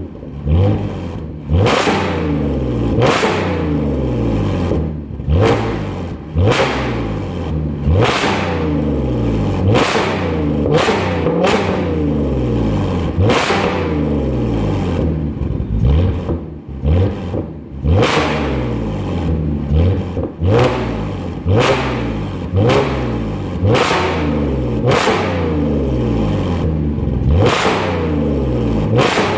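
Supercharged 3.0 V6 of an Audi S5 through an ARMYTRIX valvetronic cat-back exhaust, revved over and over in short sharp throttle blips. Each blip climbs fast and drops back to idle, every second or two.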